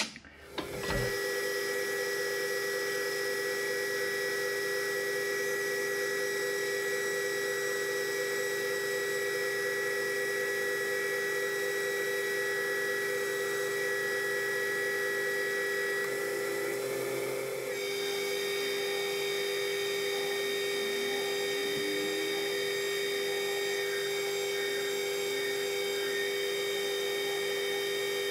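Metal lathe running as it turns a bar down from an inch and a half toward one inch, a steady whine of several fixed tones that starts up about a second in. The mix of tones shifts about two-thirds of the way through, then holds steady again.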